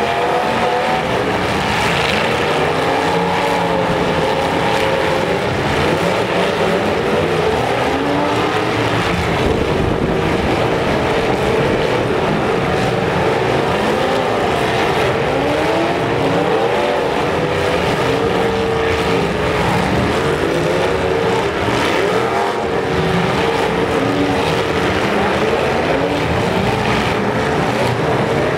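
Several demolition derby cars' engines revving hard at once, their pitches rising and falling over one another as the cars accelerate and ram each other, with an occasional crash of metal.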